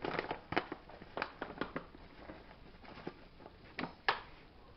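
Paper flour bag crinkling and rustling as flour is poured from it into a measuring cup, heard as a series of irregular short crackles and clicks, the sharpest two near the end.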